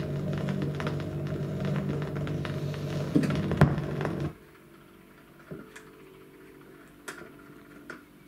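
The last notes of a song playing on a 1963 Fidelity UA7 record player, a held chord that cuts off suddenly about four seconds in. Then scattered sharp clicks from the player's mechanism as the tone arm moves off the record.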